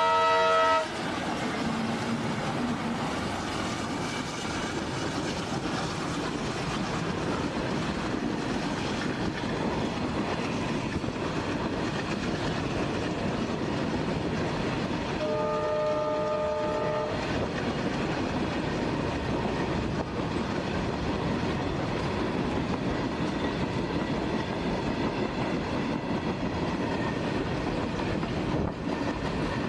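A diesel locomotive's horn ends about a second in. Then a long freight train of flat wagons loaded with lorries rolls steadily past, with a continuous rumble and wheel clatter. A second, fainter train horn sounds for about two seconds around the middle.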